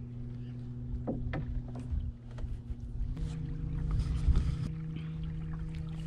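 Small motor on the canoe running with a steady hum, its pitch stepping up about three seconds in as it is turned up, over low wind and water rumble and a few light knocks.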